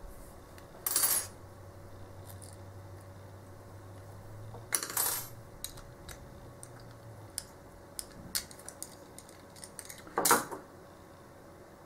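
Metal clinks and scrapes of a padlock being taken apart by hand, a tool working at its shield, with three louder clinks about a second in, around five seconds and just past ten seconds, and light ticks in between.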